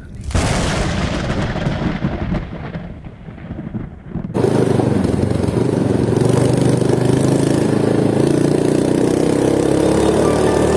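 Thunder: a sudden crack about a quarter second in, rolling and fading over about four seconds. It then cuts abruptly to a steady, loud sound with held pitches.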